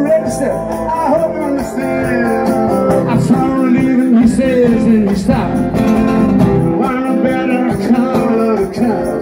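Live rock band playing: a man singing over guitars, bass guitar and drums.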